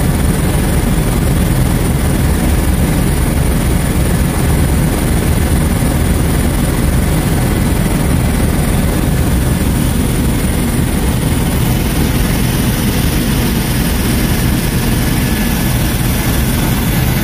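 Helicopter engine and rotor noise, a steady loud drone heard from on board the aircraft.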